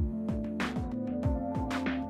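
Electronic background music with a steady beat of deep kick drums under sustained synth tones.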